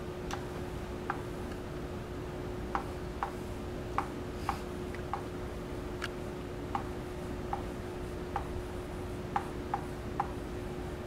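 Chalk tapping and scratching on a chalkboard as a word is written out: short, irregular clicks, about one or two a second, over a steady low hum.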